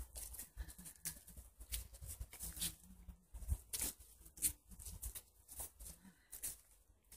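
Footsteps crunching and rustling through dry fallen leaves on a forest path, an irregular run of short strokes about two a second.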